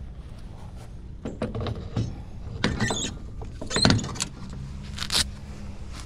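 Knocks, clicks and rattles of lawn equipment being handled and set into a truck-mounted equipment rack, louder around the middle. A low steady hum joins about four and a half seconds in.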